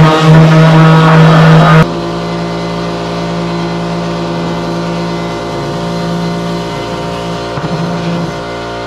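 An electric power tool's motor running flat out after spinning up, for cutting holes, then cutting off abruptly about two seconds in. A quieter, steady hum of several held tones follows.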